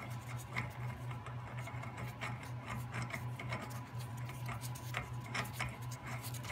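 Light, irregular metallic ticks and rubbing as an inverted 30 mm axle nut is spun by hand onto the threaded end of a Porsche 914's axle shaft, over a steady low hum.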